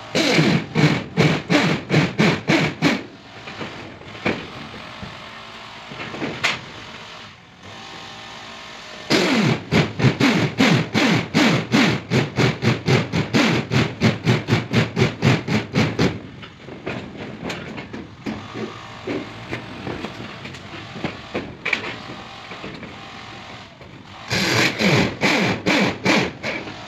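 Handheld power driver sinking self-drilling tek screws through corrugated metal roofing sheet, running in rapid, evenly spaced pulses. It runs in three bursts: for about three seconds at the start, a long one of about seven seconds in the middle, and again near the end.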